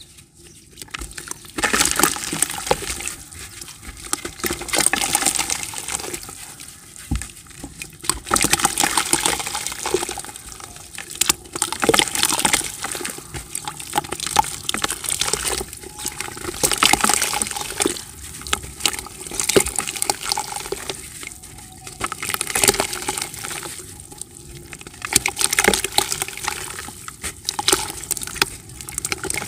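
Dry yellow dirt chunks snapping and crumbling in the hands, crumbs and dust dropping into a bucket of water. The crackling comes in repeated bursts every couple of seconds.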